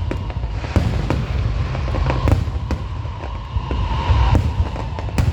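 Aerial fireworks display: sharp bangs of shells bursting, about two a second, over a continuous low rumble of launches and echoes.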